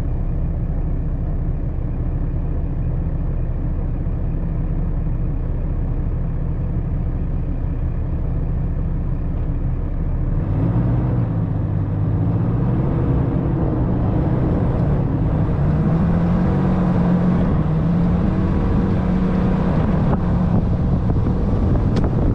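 Dodge Ram 3500 pickup driving over a dirt track: steady engine and tyre noise. About halfway through, the sound gets louder and the engine note rises and falls as the truck works harder.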